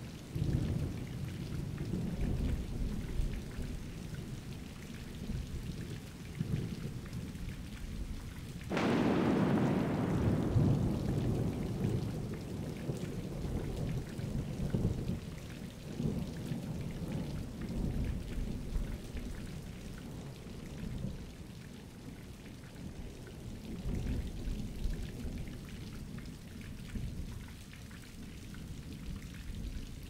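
Thunderstorm: steady rain with thunder rumbling throughout, and a sharp, loud thunderclap about nine seconds in that fades into a long low rumble.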